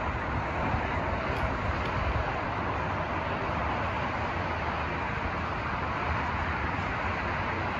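Steady rushing outdoor noise with no firework bangs.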